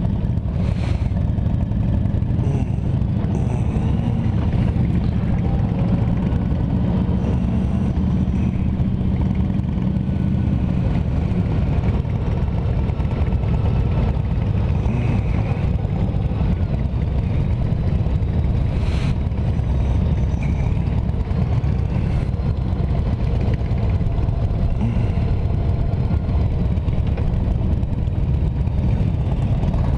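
Honda Gold Wing motorcycle on the move, its engine running steadily under a constant rush of low wind noise on the microphone.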